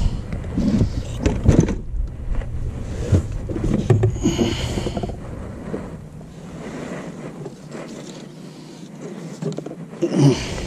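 Knocks and thumps of a landing net and a catfish being brought aboard and set down on the floor of a small plastic boat, busiest in the first five seconds and with one more thump near the end.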